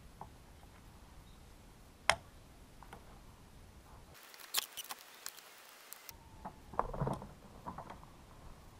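Scattered small clicks and taps of hands and tools handling the plastic and metal parts of a disassembled chainsaw, with one sharp click about two seconds in and a cluster of quick clicks around the middle.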